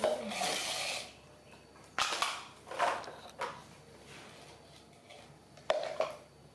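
Clatter and scraping of a plastic toy truck and plastic bowl on a tiled floor as baby monkeys knock them about. There is a longer scrape of about a second at the start, then a few short knocking bursts, the last near the end.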